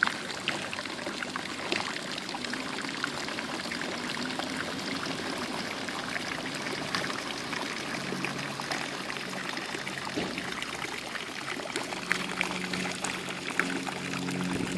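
Running water trickling and splashing steadily, with many small drips and splashes. Soft sustained music tones come in about halfway through and grow louder near the end.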